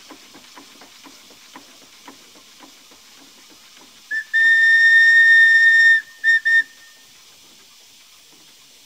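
Portable steam engine's steam whistle: one short toot, a long steady blast of nearly two seconds, then two quick toots. Before it, the engine's soft exhaust beats come about twice a second and fade away.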